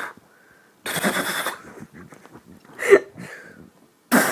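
A person imitating gunshots with their mouth: a breathy "pkhh" burst about a second in, a shorter, sharper one near three seconds, and another starting just before the end.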